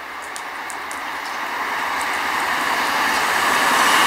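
An InterCity 125 High Speed Train approaching at speed, its diesel power car and wheel-on-rail noise growing steadily louder.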